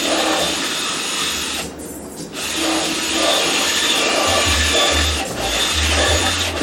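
Power drill boring holes through a plastic bucket, running steadily with a short stop about two seconds in.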